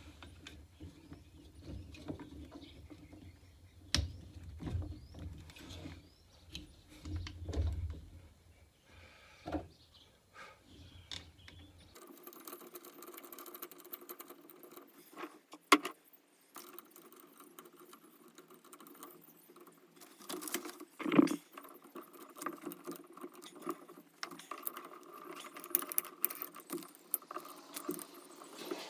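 Scattered clicks, knocks and light rattles as a satellite dish and its mounting parts are fitted back onto a caravan by hand, with two sharper knocks in the second half.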